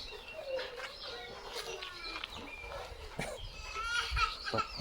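Farmyard bird calls: chickens clucking and small birds chirping in short, repeated calls, with a few scattered knocks.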